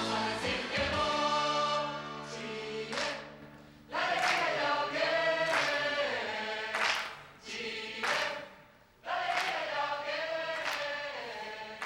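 A choir singing a campaign jingle: a long held chord, then a run of short sung phrases with brief breaks between them.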